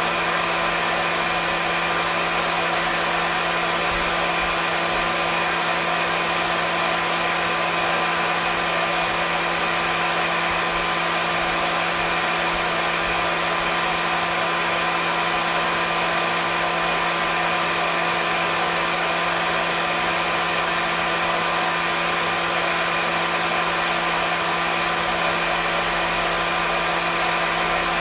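Hair dryer running continuously at a steady speed: an even blowing hiss with a constant motor hum and whine, no change in pitch or level.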